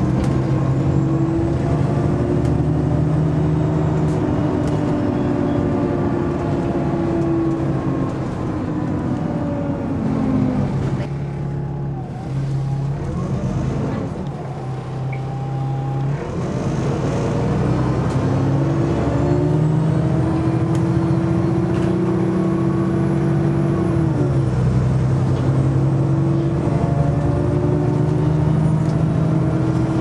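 Alexander Dennis Enviro 400 double-decker bus with a Voith automatic gearbox, heard from inside the passenger saloon: the engine note sinks as the bus slows, drops low near the middle, then climbs again in steps through the gear changes as it pulls away. It eases off about two-thirds in and then runs steadily, with a faint high whine rising over it.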